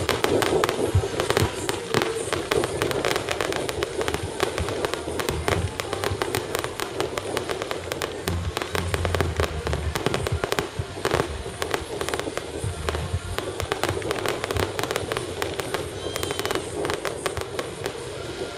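Aerial fireworks shells bursting in quick succession, a dense run of sharp cracks and pops, many a second, with crackling stars.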